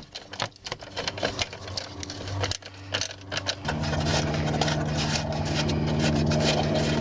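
Socket ratchet clicking rapidly as it loosens 10 mm bolts, with small metal rattles. About four seconds in, a steady low hum starts underneath and keeps going.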